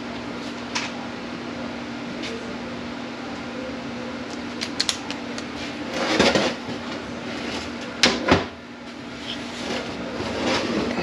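Metal tools and transmission parts handled on a workbench: scattered clicks, then louder clanks about six seconds in and twice around eight seconds in, over a steady shop hum.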